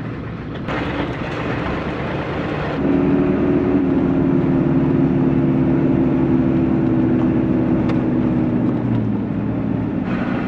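1996 Ford F-350's 7.3-litre Power Stroke diesel engine running steadily as the truck drives a dirt track, heard from inside the cab over road and tyre rumble. The sound grows louder with a steady engine drone about three seconds in, and the engine note drops a little near the end.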